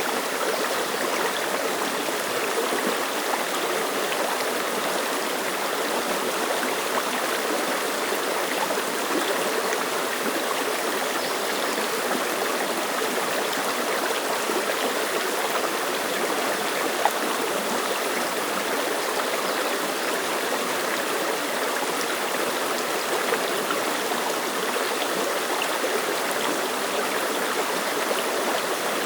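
Clear mountain stream flowing and splashing over rocks: a steady rush of water with fine trickling.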